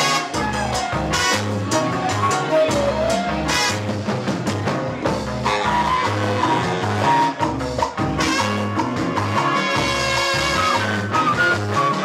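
Live band playing an instrumental: two trumpets, flute and baritone saxophone over drums, percussion, bass and keyboards, with a repeating bass figure underneath.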